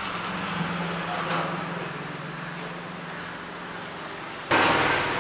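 Motor vehicle engine humming steadily over background noise, with a sudden, much louder rush of noise starting near the end.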